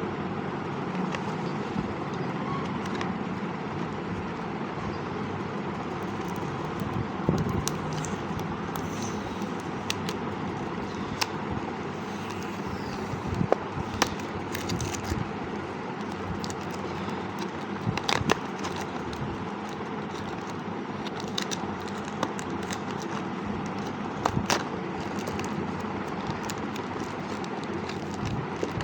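Scattered sharp clicks and taps from handling a product box and its packaging, over steady background noise.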